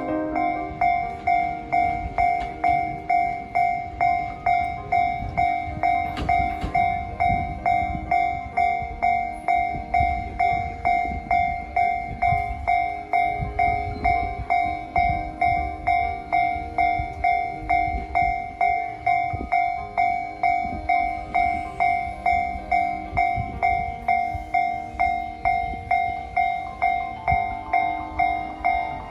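Japanese level-crossing warning bell ringing on and on at about one and a half strokes a second, over the low rumble and rail clatter of a passing train.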